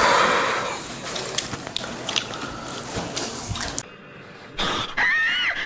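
Close chewing and crunching of crispy medu vada on a clip-on microphone, with many small crisp clicks; it stops nearly four seconds in. Near the end a series of high, rising-and-falling whistle-like tones begins.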